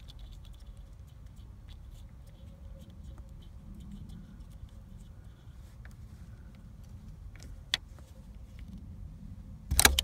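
Phillips screwdriver turning a small screw on a steering-column ignition lock housing: faint scattered ticks and scrapes over a low rumble, with a sharp click about three-quarters through and a loud knock just before the end.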